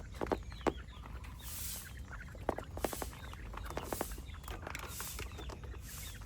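Chickens clucking softly, mixed with many short sharp taps and clicks.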